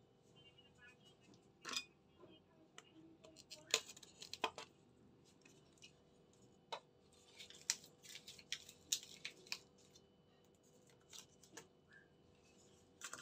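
Ice cubes dropped into a stainless-steel mixer-grinder jar, making a series of short, sharp clinks and knocks, some one at a time and some in quick clusters.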